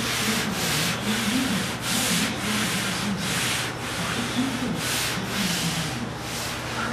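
Hand sanding on a car's body panel: a series of separate rasping back-and-forth strokes, one or two a second at an uneven pace.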